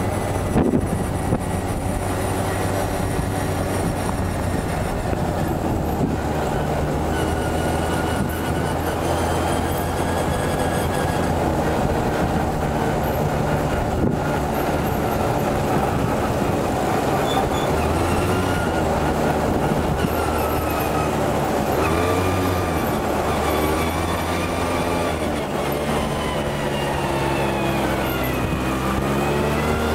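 Quad bike engine running under way, a steady drone whose pitch steps up and down with the throttle and sweeps down and back up near the end.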